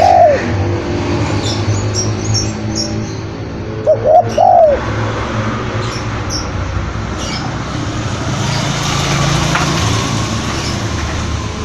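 Spotted dove cooing: two loud phrases of arched coo notes, one at the start and one about four seconds in. Small birds chirp faintly throughout over a steady low rumble.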